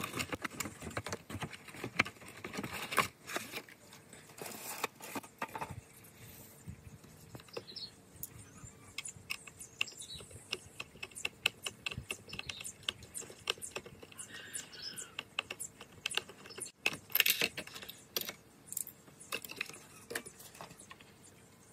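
Hands handling packaging and a small model: irregular light clicks, taps and rustles, with a denser cluster of clicks near the end.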